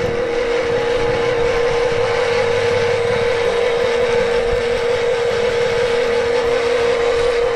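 Heavy-vehicle engine sound effect: a steady, unchanging engine drone with a strong constant hum.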